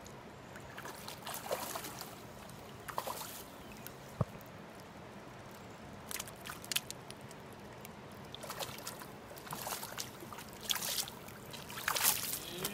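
Short, scattered splashes of river water as a hooked trout thrashes at the surface and is scooped into a landing net near the end. One sharp click about four seconds in.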